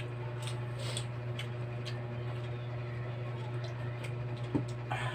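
Scattered light clicks and taps of eating at a table, with a sharper knock near the end, over a steady low hum.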